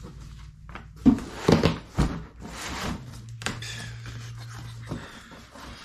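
Cardboard shipping box being handled and shifted on a concrete floor: a few knocks and thumps, then rubbing and scraping of cardboard.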